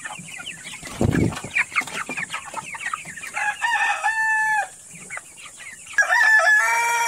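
A flock of four-week-old broiler chickens clucking and peeping, with a low thump about a second in. Two long, held calls come about three and a half seconds in and again near the end.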